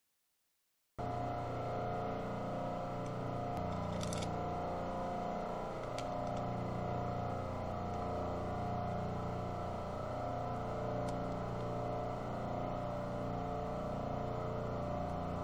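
Steady mechanical hum with several held tones, like a running motor or appliance. It drops out for about a second at the start, with a few faint ticks along the way.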